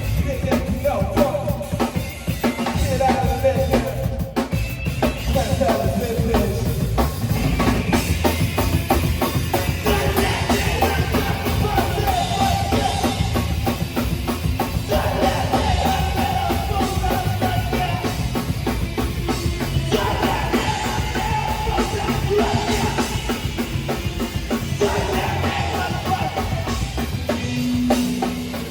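Live rock band playing, with the drum kit and bass drum prominent under a melodic line.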